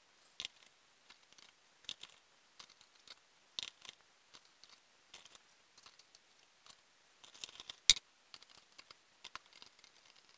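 Scattered small clicks, taps and scratches as watercolor paint tubes and half pans in a palette are handled, with one sharper click about eight seconds in.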